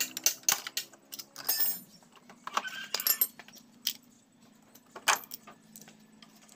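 Metal engine parts clinking and knocking as the Yamaha Jupiter Z's centrifugal clutch assembly is pried and pulled off the crankshaft. There is a quick run of sharp metallic clicks in the first couple of seconds, one with a brief ring about a second and a half in, then scattered single knocks.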